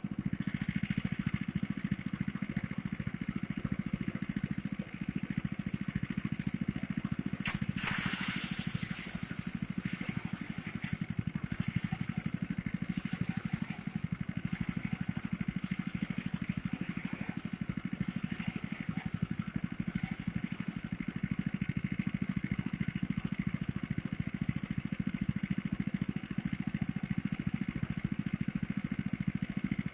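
Small engine of a motorised rice thresher running steadily, with a brief rushing hiss about eight seconds in.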